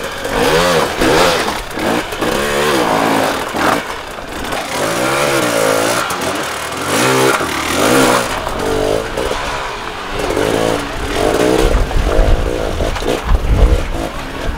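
Enduro motorcycle engine revving up and down again and again, its pitch rising and falling about once a second, with a few sharp knocks in between.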